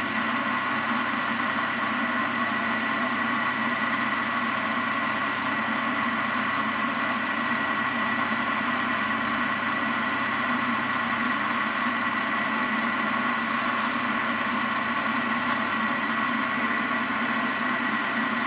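Warco metal lathe running at steady speed, a constant machine hum with a thin high whine, while a boring bar takes a light cut under power feed inside an aluminium blank. No change in pitch or level.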